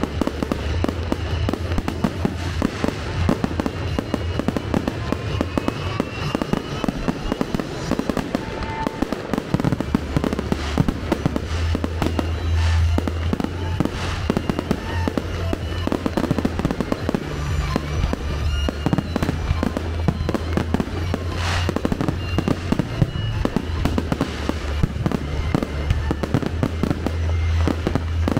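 Fireworks display going off in rapid succession: continuous dense crackling and popping from bursting shells, with several louder bangs spread through it.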